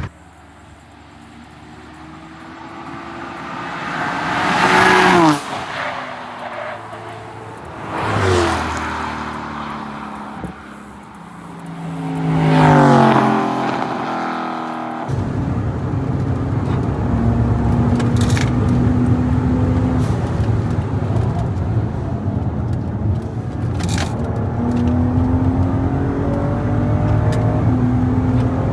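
Cars driven hard passing by, three times, each engine note swelling and falling in pitch as the car goes past. About halfway through it cuts to a steady engine drone whose pitch rises twice as the car accelerates.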